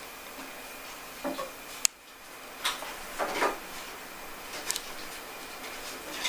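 A kitten scuffling with a soft toy on carpet: a few brief rustles and soft scrapes, with a couple of sharp clicks, one a little under two seconds in and one near five seconds.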